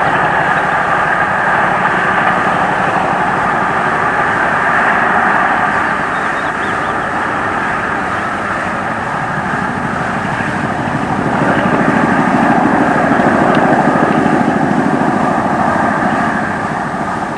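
Diesel train engine working hard, a steady drone that swells again about ten seconds in.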